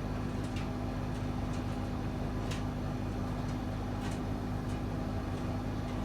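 Servis Caress M2010 tumble dryer running on heat with a full load: a steady hum from the motor and turning drum, with a few faint clicks along the way.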